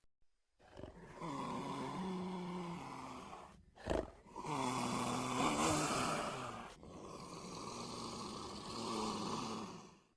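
Dromaeosaurus (raptor dinosaur) sound effect: a long, breathy growl with a low pitched tone under a hiss, in three stretches broken by a brief sharp call about four seconds in.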